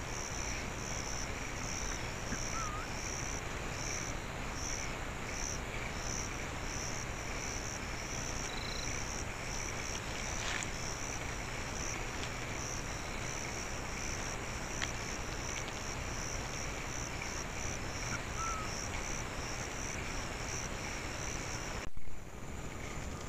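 Forest insect chorus: a steady, high pulsing trill over a soft background hiss, with a couple of faint short bird chirps. Near the end a brief loud bump cuts in and the trill stops.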